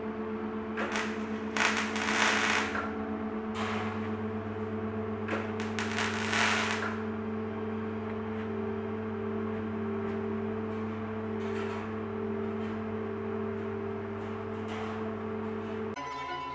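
MIG welder arc crackling in short bursts as thin steel rods are tack-welded, several in the first seven seconds, the longest about a second, then only a couple of faint ones. Sustained background music tones run underneath.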